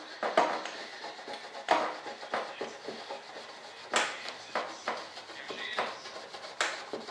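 Short, irregular strokes of a small hand-held item rubbing and scraping across the side of a mold, with a few sharper scrapes a second or two apart.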